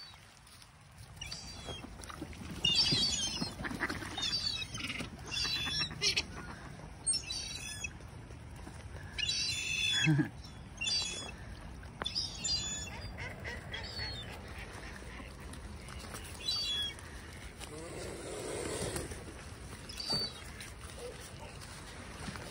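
Waterbirds calling, a string of short calls about every second, with a lower, longer call near the end.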